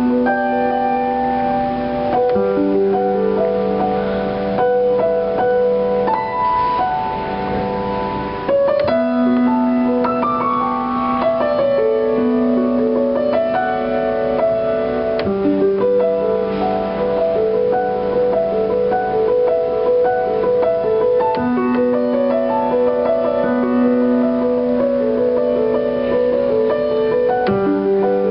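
Piano playing an improvised tune: sustained chords over a low note that switches between two pitches every six seconds or so, with a melody moving above.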